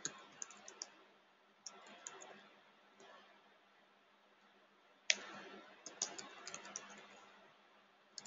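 Typing on a computer keyboard in short bursts of key clicks, with pauses between them and one sharper click about five seconds in.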